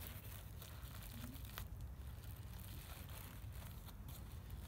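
Soft crinkling and rustling of paper and tape as a paper-wrapped tube is twisted and handled, with a few small clicks over a low steady rumble.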